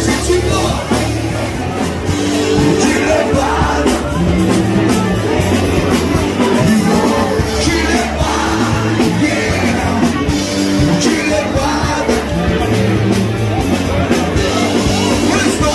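Live rock band playing loud: electric bass and drums with a singer's voice over them.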